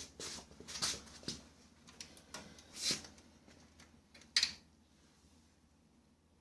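Scattered clicks, scrapes and knocks of printer parts being handled during disassembly, with one sharp click about four seconds in.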